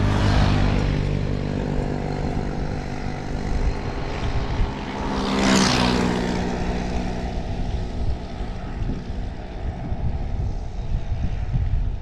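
Motorcycles overtaking a bicycle one after another: the engine drone swells as each goes by, once right at the start and again about five and a half seconds in, its pitch dropping as it passes.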